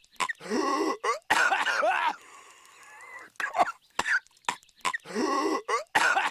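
Patrick Star, the SpongeBob SquarePants cartoon character, coughing in fits: several drawn-out rasping coughs, with a run of short sharp clicks in the middle.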